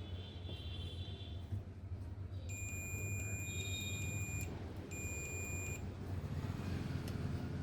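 Electronic buzzer of a UPS beeping twice: a steady high beep of about two seconds, then after a short gap a shorter one of about a second, over a steady low hum.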